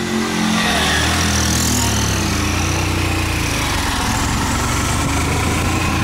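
Motorcycle engine running steadily under load, carrying a rider and passenger up a steep hill. The engine picks up about half a second in.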